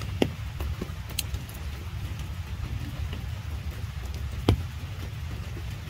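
Rain falling on puddles and wet ground: scattered sharp drop ticks, a louder one near the end, over a steady low rumble.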